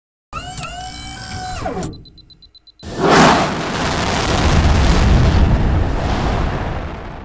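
Cartoon rocket-launch sound effect: a pitched tone that rises, holds and then drops away, a short lull with faint high beeping, then about three seconds in a loud blast of rocket roar that slowly fades out.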